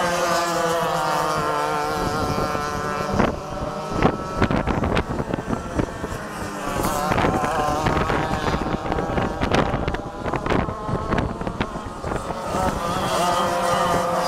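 Two-stroke 100cc speedway flat kart engines running hard as the karts race, their note rising and falling. Through the middle stretch the engine sound is broken up by gusty crackling of wind on the microphone.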